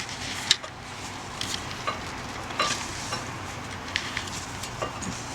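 Light metallic clicks and clinks, about eight of them at uneven intervals, as new brake pads with spring clips on their backs are worked into a rear disc brake caliper, over a steady hiss.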